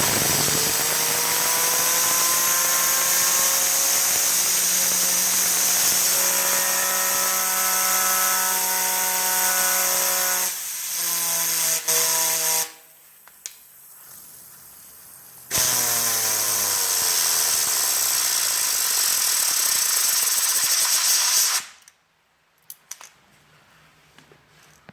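Compressed air hissing from a compressor blow gun onto a fidget spinner, which whirs with a tone that rises in pitch as it spins up. The air stops for a few seconds and then blasts again, this time with a whir that falls in pitch. It cuts off near the end, leaving a few faint clicks.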